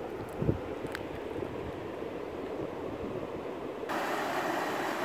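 Low wind rumble on the microphone with a single knock about half a second in. About four seconds in it changes abruptly to the steady hiss of shallow creek water rippling over gravel.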